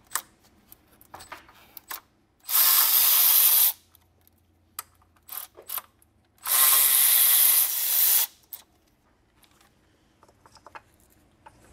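A ratchet wrench spun in two runs of rapid clicking, the second longer than the first, with light clicks and taps of tools between.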